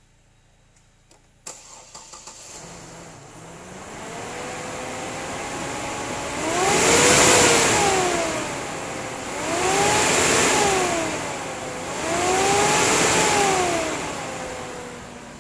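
2004 Buick Rainier's engine starting about a second and a half in and settling to idle, then revved three times, each rev rising and falling over two to three seconds, before dropping back to idle.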